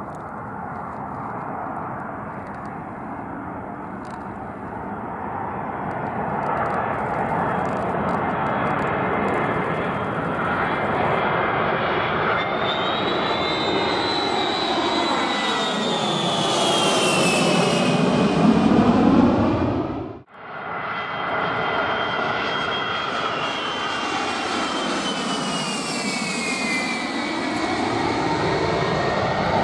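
Four TF33 turbofan engines of a Boeing E-3A AWACS jet growing louder as it comes in low and passes by, the engine whine falling in pitch as it goes past. The sound cuts off suddenly about twenty seconds in, then a second low pass follows with the same falling whine.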